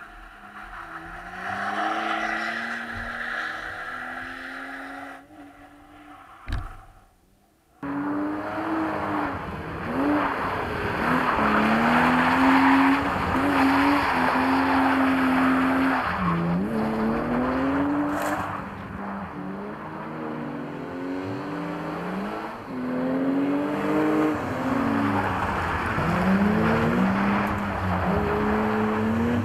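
BMW 3 Series engines revving hard and falling back again and again while drifting, with tyre squeal from the sliding rear tyres. The sound is quieter at first, cuts out briefly about seven seconds in, then comes back much louder.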